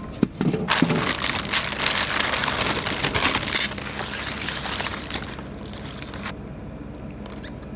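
Aluminium foil lining of a styrofoam fish box crinkling and crackling as it is pulled open, with crushed ice shifting as hands reach in among the fish. The crackling stops about six seconds in.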